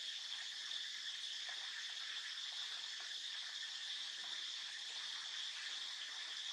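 Steady insect chorus, a constant high-pitched buzz that holds level without pauses.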